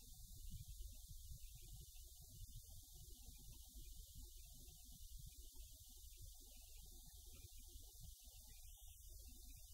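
Near silence: a faint, uneven low rumble.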